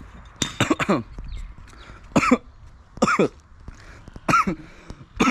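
A man coughing and clearing his throat in a run of short voiced coughs, roughly one a second, right after gulping water from a garden hose.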